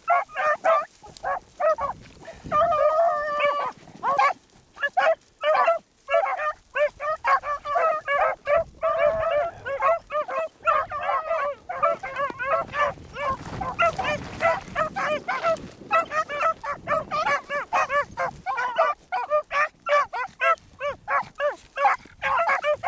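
Several beagles baying on a rabbit's scent trail: quick, overlapping barks with a longer drawn-out bawl about three seconds in. The hounds are giving tongue as they run the track.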